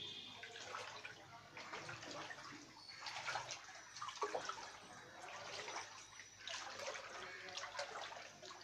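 Someone wading through shallow floodwater: irregular splashing and sloshing of water.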